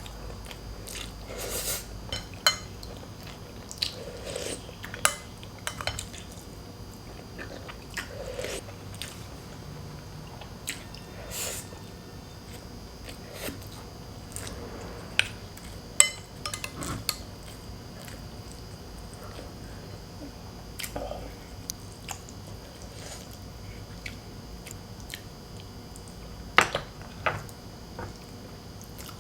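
Close-miked eating: chewing and biting into boiled pork hock and rice, with wet mouth sounds and scattered sharp clicks, the loudest a cluster of clicks about 27 seconds in.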